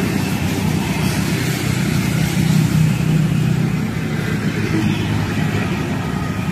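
Road traffic: a steady low engine hum, loudest about halfway through, with motor scooters passing.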